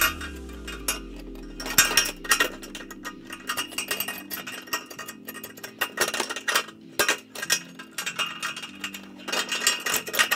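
Irregular metallic clinks and rattles of mounting-bracket hardware being handled and fitted onto a metal truss pole, with a quick cluster of them near the end, over soft background music with sustained tones.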